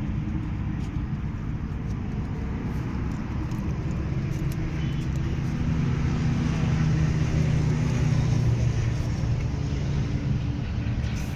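Vehicle running, heard from inside the cabin: a steady low rumble that swells a little midway and eases slightly near the end.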